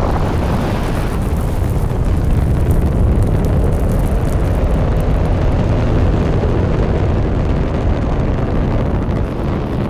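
Delta IV rocket's RS-68 liquid-hydrogen main engine and two solid rocket motors firing at ignition and liftoff, heard close to the pad: a loud, steady rumble, heaviest in the deep bass.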